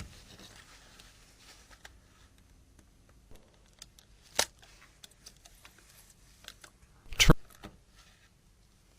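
Sharp plastic clicks and snaps from the parts of a Nokia 3200 phone being handled and pried apart, with the two loudest snaps about four and a half and seven seconds in.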